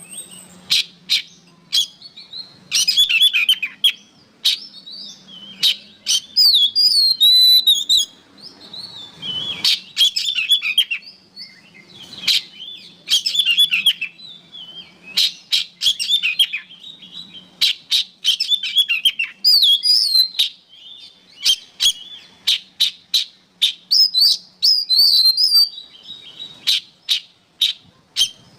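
Oriental magpie-robin (kacer) in full song: a fast, unbroken run of varied whistled phrases with many sharp clicking notes, a new phrase every second or two.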